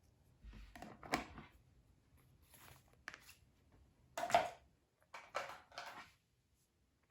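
Slime being pressed and pulled by hand: several short sticky handling noises, the loudest about a second in and again about four seconds in.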